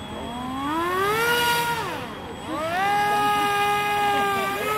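A model boat's motor whining as the throttle is worked: it rises in pitch, holds, drops away about two seconds in, then rises again and holds.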